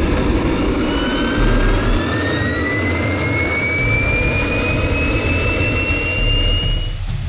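KingTech G310 model turbojet engine spooling up during its startup sequence: a loud, steady rush with a whine that rises steadily in pitch, cutting off near the end.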